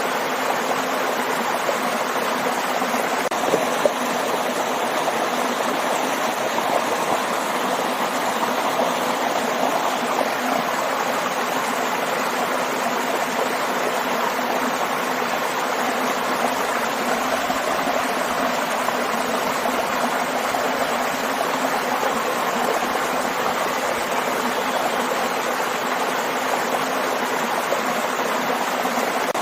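Steady rushing and splashing of a small waterfall and stream, with no pauses or changes.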